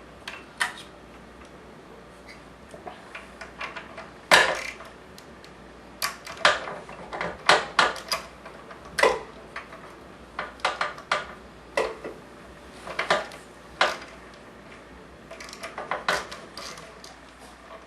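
Irregular metallic clicks and clinks of a 13/16 spark plug socket and its wrench working a spark plug loose on a Honda 3000 generator, with small clusters of quick clicks.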